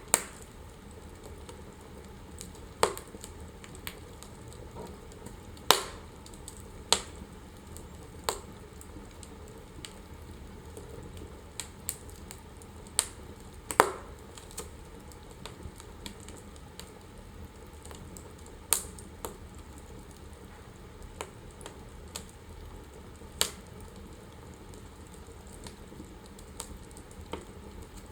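Wood fire in a fireplace crackling: irregular sharp pops and snaps, a few seconds apart, over a steady low hiss, with the loudest pops about six and fourteen seconds in.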